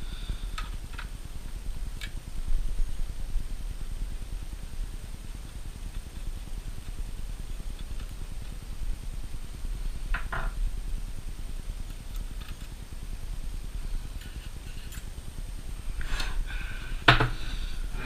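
Phillips screwdriver turning out a small screw at the aluminium bottom edge of an iMac, with a few scattered light metallic clicks and clinks over a steady low hum. A louder knock comes near the end.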